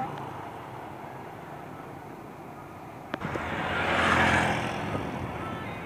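Steady engine and road rumble from inside a moving car, with a short click about three seconds in and a vehicle passing that swells louder and fades away about four seconds in.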